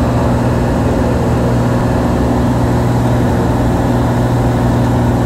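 Cessna floatplane's engine and propeller running steadily at constant pitch in flight, heard from inside the cabin.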